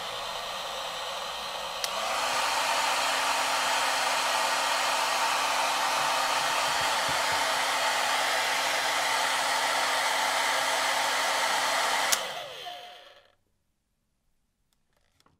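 Electric hair dryer blowing steadily. With a click about two seconds in it steps up louder, adding a steady motor hum. With another click about twelve seconds in it winds down to silence.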